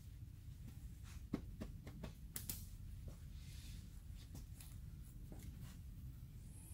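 Faint, scattered clicks and light taps of hands handling tools or parts, over a low steady hum.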